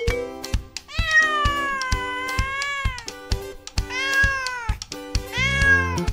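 Three drawn-out, wavering animal calls, the first lasting about two seconds and the last short, over background music with a steady beat.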